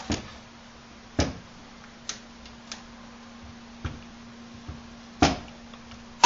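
Scattered small clicks and knocks of two small steel Allen wrenches pressing against the metal foregrip cap of an AMD-65 rifle, working the cap's retaining pinholes, with louder knocks about a second in and about five seconds in. A faint steady hum lies underneath.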